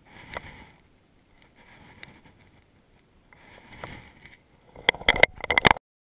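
Three soft swells of river water sloshing, then a rapid cluster of loud clicks and knocks of hands handling the camera, which cuts off suddenly.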